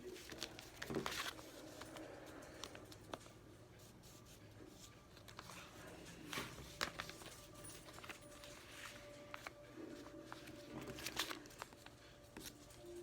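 Faint, intermittent rustling and light taps of things being handled in a small room.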